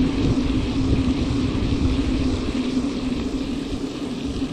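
Baitcasting reel cranked steadily during a crankbait retrieve, giving a constant low whir, with wind rumbling on the microphone.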